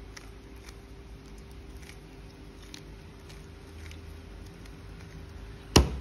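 Stickerless plastic 3x3 puzzle cube being twisted by hand: faint, irregular clicks of its layers turning. Near the end comes one sharp, loud knock as the cube is set down on the table.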